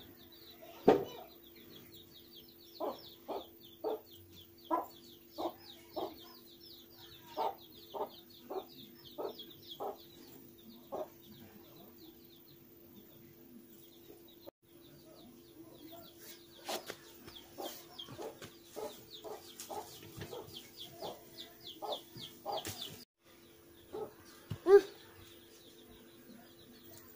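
A chicken clucking in a regular run of about two clucks a second, with a fast high chirping over it. Later the clucks come irregularly among a few knocks, and one louder sharp sound comes near the end.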